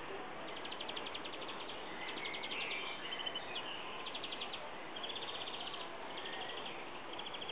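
Short, rapid high trills repeated roughly once a second, with a few brief chirps, over a steady outdoor hiss: small wild animals calling in a garden.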